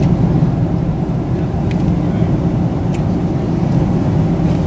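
Steady cabin noise inside a Boeing 767-300 airliner: the even rumble of the engines and airflow with a low hum, and a couple of faint clicks.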